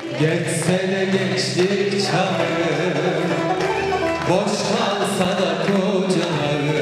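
Live Turkish song: a male vocalist singing long, bending phrases into a microphone, accompanied by an instrumental ensemble with light percussion.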